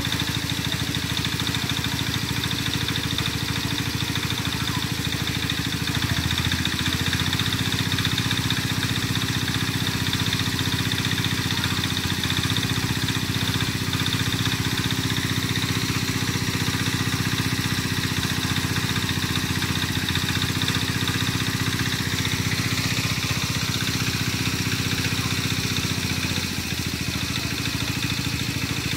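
An engine running steadily at an even speed, its note shifting slightly about six seconds in and again near the end.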